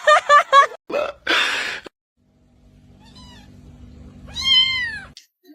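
A cat vocalizing: a quick run of short calls at the start, then one long meow that falls in pitch near the end.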